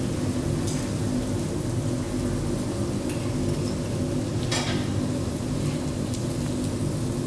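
Korean beef sizzling on a tabletop barbecue grill, a steady hiss over a low hum, with a few light clicks.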